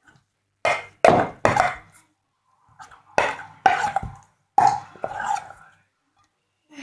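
Stirring stiffening slime in a container: about eight short knocks and scrapes as the utensil strikes and drags against the container. The slime is thickening and has become hard to stir.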